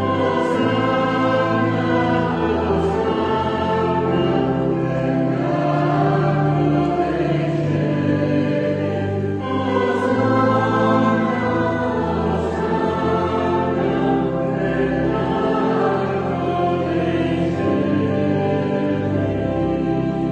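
A church choir singing a hymn over held low accompanying notes, continuous and reverberant in the church.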